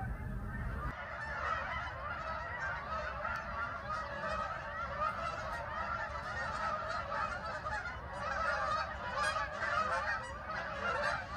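A large flock of geese flying overhead, many honking at once in a dense, continuous, overlapping chorus.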